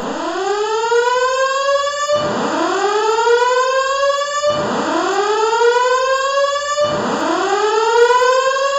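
Building fire alarm voice-evacuation speakers sounding the whooping evacuation tone during a test. The tone is a rising sweep that climbs, cuts off abruptly and starts again, four times, a little over every two seconds.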